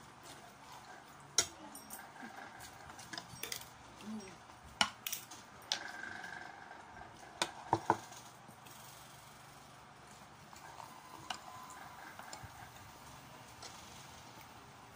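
Eating utensils clinking against plates and bowls during a meal: scattered sharp clicks at irregular intervals, with three quick ones close together a little before the middle.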